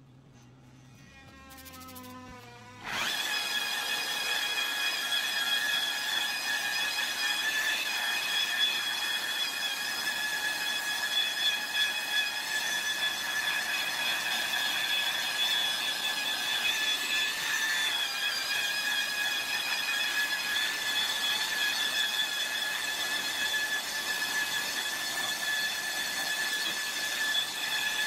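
Electric rotary polisher buffing a plexiglass panel, coming up to speed about three seconds in and then running with a steady high whine.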